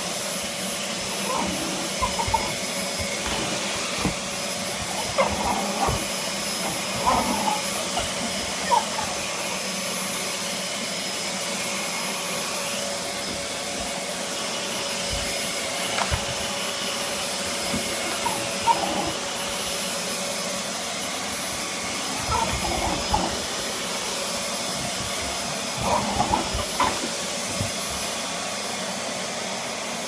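Vacuum cleaner running steadily, a constant hum with a high whine. A miniature schnauzer barks and growls at it in short bursts, several times, with a few knocks as the dog strikes the cleaner head.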